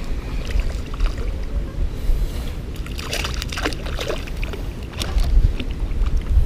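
Wind rumbling on the microphone and water moving against a kayak hull while a spinning reel is cranked. Midway there is a run of short clicks and splashes as the line comes in toward the kayak.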